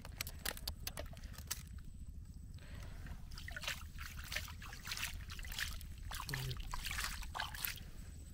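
Crab tongs working in wet mud beside a mud crab: scattered sharp clicks and wet crackles over a steady low rumble, with a short voice sound about six seconds in.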